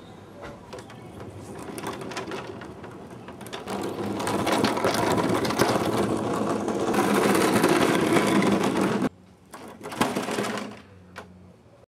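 Skateboard wheels rolling over rough concrete: a gritty, rattling rumble that grows louder, cuts off abruptly about nine seconds in, then returns briefly in a couple of short rolls.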